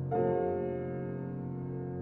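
Slow, calm background music: a new chord comes in just after the start and rings on, fading slowly.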